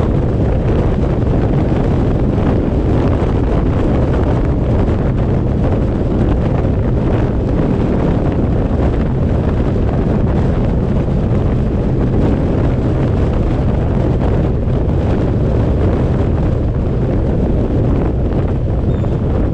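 Steady rush of wind buffeting the microphone, mixed with road noise from the moving vehicle carrying the camera.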